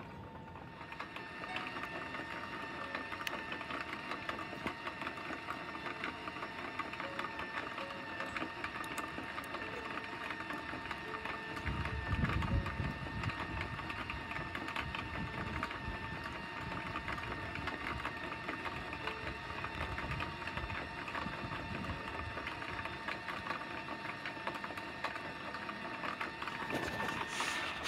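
Aluminium foil reacting with sodium hydroxide solution in a glass flask, fizzing and crackling steadily as it gives off hydrogen gas. A brief low rumble comes about twelve seconds in.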